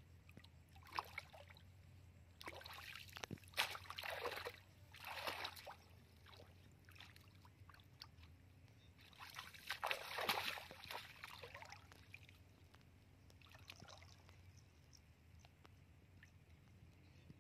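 Shallow muddy water sloshing and splashing in several irregular bursts, loudest about a quarter of the way in and again near the middle, as a bamboo plunge-basket fish trap is worked down into it and hands grope inside for fish.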